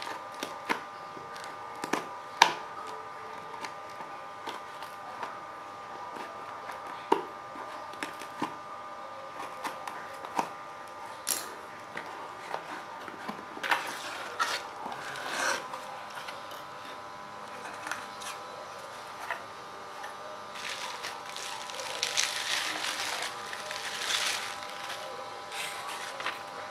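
Scissors snipping and cutting through the tape and cardboard of a shipping box, with scattered clicks and scrapes as the flaps are handled. A longer stretch of cardboard and plastic packing rustling and tearing comes near the end, over a steady faint hum.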